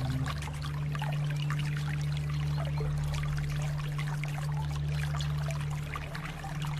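Water flowing and trickling, with many small splashes and drips. Under it a low steady drone of held notes shifts pitch about six seconds in.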